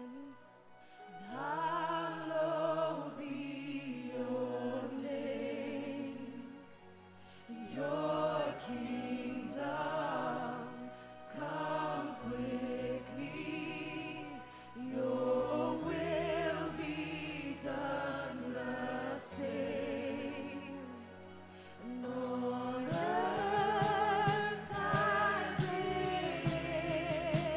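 Church worship music: singers with a wavering vibrato, in phrases of a few seconds, over held low notes, swelling louder near the end.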